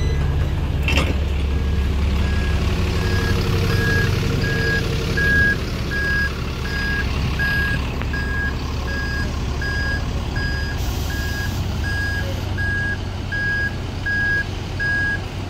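A vehicle reversing alarm beeping in one steady tone, about one and a half beeps a second. Under it is the low, steady running of a double-decker bus's diesel engine, with a single knock about a second in.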